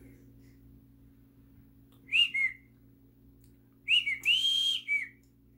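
A person whistling short clear notes: two quick notes about two seconds in, then a run of about four notes near the end, one held higher and longer.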